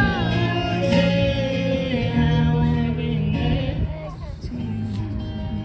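Background song: a singing voice over a guitar accompaniment with bass.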